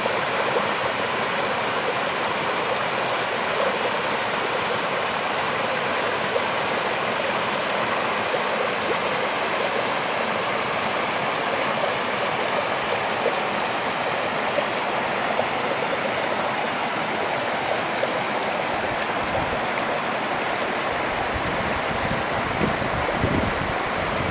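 Mountain creek water running steadily over rock slabs and splashing down small cascades.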